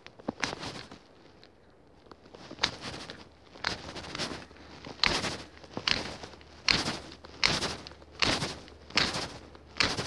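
A Zlatoust knife scraped hard down a ferrocerium rod (fire steel) to throw sparks onto tinder: short rasping strokes repeated over and over, a couple at first, then after a short lull a steady rhythm of about one and a half strokes a second from about two and a half seconds in.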